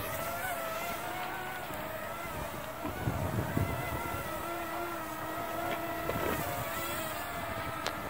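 Parrot Swing drone's small propellers whining steadily in flight, the pitch wavering slightly as the motors adjust. Wind gusts buffet the microphone about three seconds in and again near six seconds.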